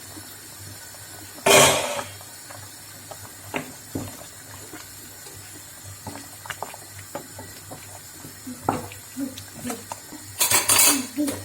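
Kitchen clatter of pots and utensils: scattered small knocks and clinks, a loud clatter about a second and a half in, and another burst of clattering near the end.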